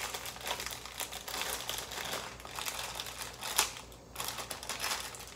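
Plastic wrapper of an instant ramen noodle packet crinkling and rustling as it is handled and torn open, with a few sharper crackles.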